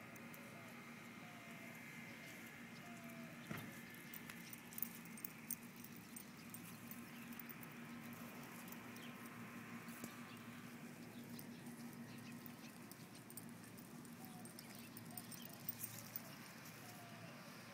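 Faint patter and scattered light clicks from a small Chihuahua puppy trotting on a leash over concrete, over a steady faint background hum.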